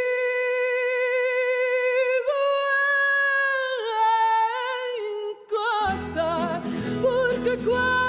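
A female fado singer holds long, unaccompanied notes, stepping up and then back down in pitch. About six seconds in, the instrumental accompaniment comes in beneath her voice.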